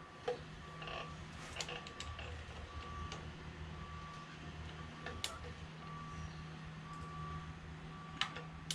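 A vehicle's reversing alarm beeping in an even repeating pattern, over a steady low hum. A few light, sharp clicks from handling metal tools are scattered through it.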